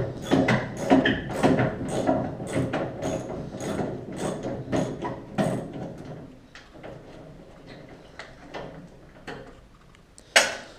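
Hand socket ratchet being worked on the car's bolts, clicking about three times a second and then slowing and fading after about six seconds. A single sharp knock near the end.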